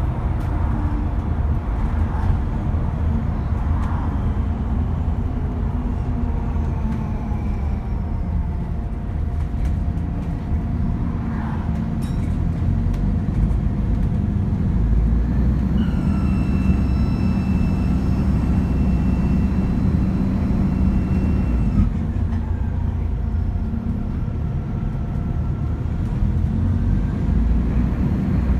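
Stagecoach bus's diesel engine rumbling under way with its turbocharger whining; a steady high whine comes in suddenly partway through and cuts off several seconds later, with fainter falling whines earlier on.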